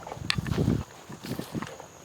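Footsteps of a person walking: uneven steps with short clicks and rustles, the heaviest thud about half a second in.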